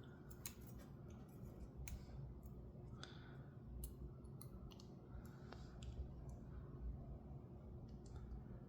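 Faint, scattered metallic clicks and light scraping as a thin metal shim is worked into a picked lock cylinder to hold the pins while the lock is taken apart.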